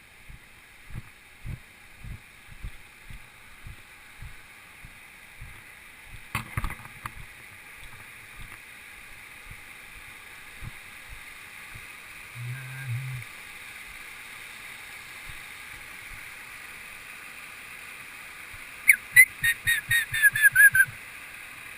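Footsteps on a trail, about two a second, over a steady high hiss. Near the end, the loudest sound: a bird call, a quick run of about eight whistled notes falling in pitch.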